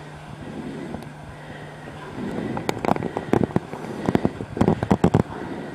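Handling noise from a camcorder sealed in a waterproof bag: the bag rustling and rubbing against the microphone over a low hum, then a dense run of sharp crackles and clicks from about two seconds in.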